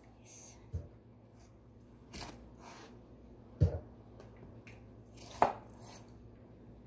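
Kitchen knife slicing a peeled cucumber on a wooden cutting board: a few separate knocks of the blade striking the board, spaced a second or more apart, the loudest about halfway through.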